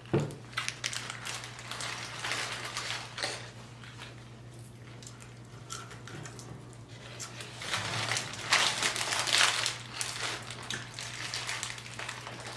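Paper fast-food bag and wrappers crinkling and rustling as food is handled, in two spells of a few seconds each, over a steady low hum.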